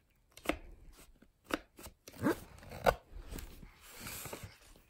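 Thick cardboard pages of a board book being handled and turned: several soft knocks and taps, the loudest about three seconds in, then a faint rustle near the end.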